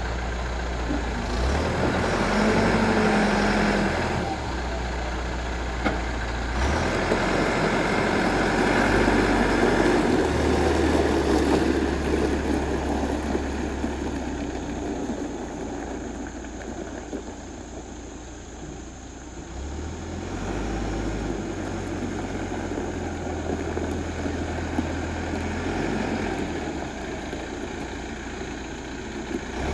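Caterpillar 416C backhoe loader's diesel engine running, its speed rising and falling several times.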